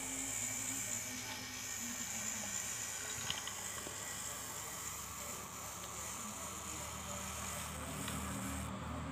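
Battery-powered toy steam locomotive running on plastic track: its small electric motor whirring steadily along with the wheels on the rails, with a few light clicks about three seconds in.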